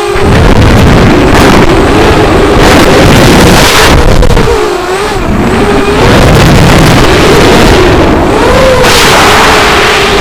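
Onboard sound of an FPV racing quadcopter in flight: the brushless motors and propellers whine loudly over heavy rushing air noise, their pitch rising and falling with each throttle change through the turns.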